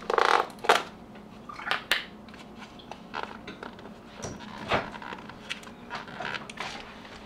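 Thin plastic tub lid crackling and clicking as it is squeezed and pried at. The lid is stuck and will not come off. The loudest crackle comes right at the start, followed by scattered clicks and crinkles.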